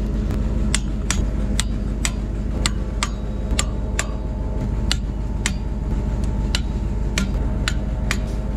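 Ratchet of a large 3/4-inch-drive torque wrench clicking as it is worked on a bolt, sharp single clicks about two a second, over a truck engine idling steadily.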